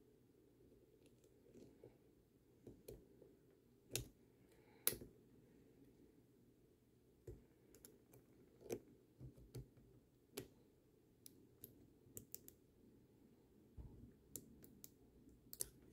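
Faint, irregular metal clicks and small scrapes of a hook pick and shim working inside a brass padlock core, trying to lift its retaining pin. The two loudest clicks come about four and five seconds in.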